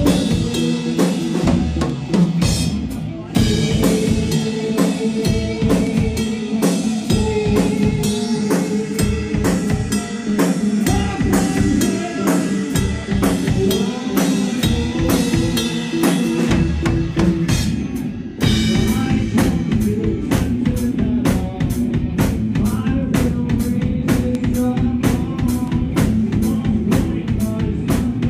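Live rock band playing: electric guitars over a drum kit keeping a busy, steady beat. There is a short break about three seconds in and a change of section about two-thirds of the way through.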